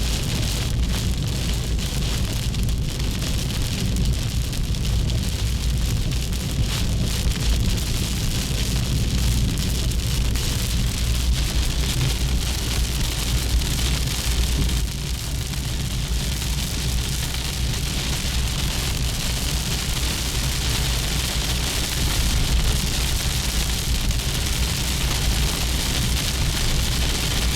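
Heavy rain pattering steadily on a car, over a steady low rumble of the car running.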